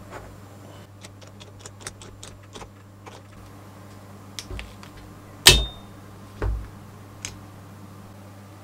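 Small metal parts and a hand tool being handled during assembly of a model V8 engine. First comes a quick run of light ticks, then a sharp metallic clack with a brief ring, a duller thump a second later and one last click.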